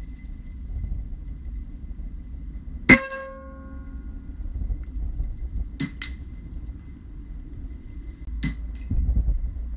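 A single sharp Air Arms S410 air rifle shot about three seconds in, with a brief metallic ring from the pellet striking a steel spinner target. Later come fainter clicks: two close together, then one more.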